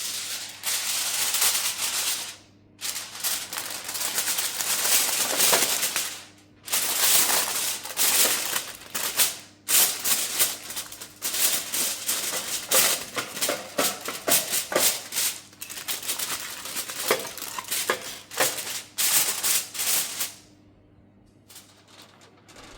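Crinkly wrapping being handled and crumpled by hand: dense crackling and rustling with many sharp crackles, in long spells broken by two short pauses, dying away near the end.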